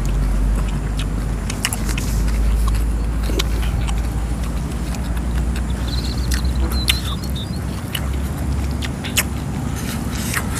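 Eating sounds: close chewing and crunching, scattered crisp clicks over a steady low rumble.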